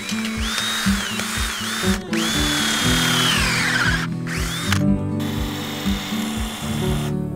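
Cordless drill running in three bursts, its motor whine rising and dipping in pitch; in the longest burst, about two seconds in, the pitch sinks steadily as the long bit bores into a wooden fence post. Background music with a steady beat underneath.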